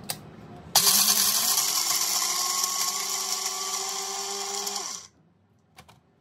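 Small single-jar blender motor grinding roasted makhana (fox nuts), almonds and cashews into powder. The motor spins up with a rising tone about a second in, runs steadily for about four seconds, then winds down and stops, followed by a couple of light clicks near the end.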